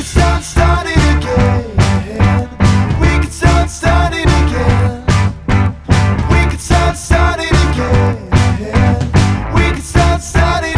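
Rock music with a steady driving beat, about two drum hits a second, over bass and guitar.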